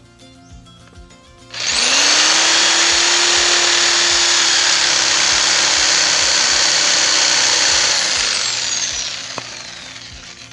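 Electric jigsaw starts up about a second and a half in, with its pitch rising quickly, and runs loud and steady, cutting wood, for about six seconds. It then winds down with a falling pitch. Background music with a steady beat plays underneath.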